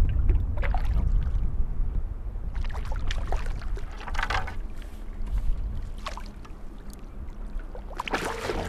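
A hooked rudd splashing repeatedly at the water's surface as it is played in and scooped into a landing net. The splashes are heaviest a few seconds in, with another near the end as the net goes under it, over a steady low rumble.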